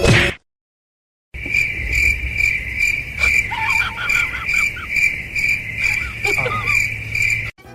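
Crickets chirping in a steady high trill that pulses about twice a second, starting about a second in. A few short gliding sounds come through lower down midway and again near the end.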